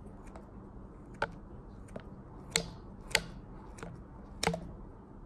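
Scissors snipping a dog treat into small pieces: a handful of sharp, irregularly spaced snips.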